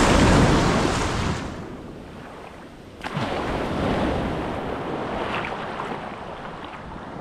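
Small waves washing and breaking in shallow surf, loudest in the first second or so and then easing off, with another surge of wash starting suddenly about three seconds in.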